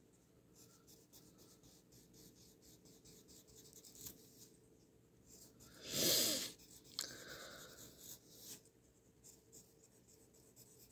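Graphite pencil scratching across paper in many short strokes, sketching rows of scalloped feathers. One brief, louder rush of noise about six seconds in.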